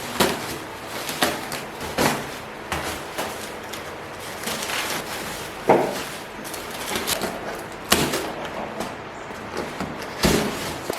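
Irregular knocks and clatters of objects being handled, the loudest just before six seconds in and again at eight seconds.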